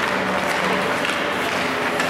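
Steady, noisy ice-rink ambience during hockey play, with faint steady tones underneath.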